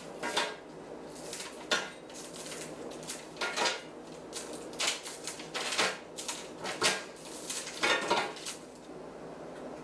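Baked nut crisp of pecans, walnuts and coconut set hard with syrup being broken up by hand: irregular snaps and crackles with pieces clattering onto a parchment-lined baking sheet, stopping near the end.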